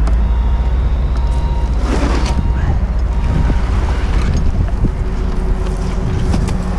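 The delivery boom truck's engine runs steadily under heavy wind noise on the microphone. A few knocks and scrapes come as bundles of asphalt shingles are slid off the boom's forks onto the wooden platform on the roof.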